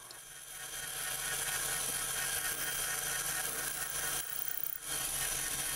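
Metal lathe running with a boring tool taking a light spring cut inside the bore of a steel workpiece: a steady whir with a high cutting hiss, which dips briefly a little past four seconds in.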